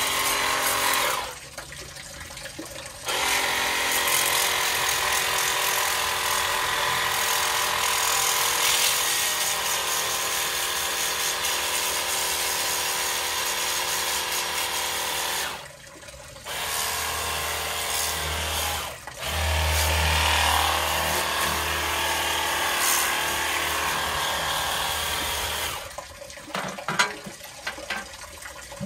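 Cordless pressure washer running and spraying water onto metal grill plates in a sink, in long bursts with short pauses between. Near the end the spraying stops and the metal plates clatter as they are handled.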